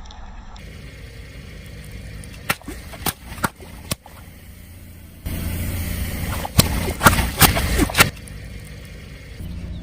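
A car's tyre rolling over crunchy objects, with a series of sharp cracks and crunches. The loudest cluster of cracks comes about two-thirds of the way through, over a steady low rumble of the car.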